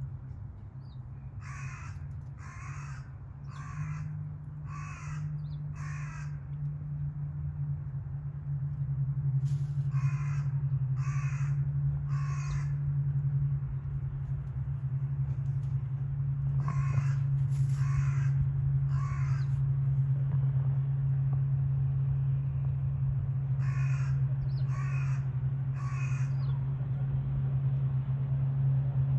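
Crow cawing in runs of short calls: five, then three, three and three. Beneath it runs a steady low hum that grows louder about eight seconds in.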